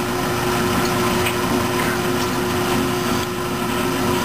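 Drilling machine running steadily with a constant motor hum while drilling a hole in a metal part.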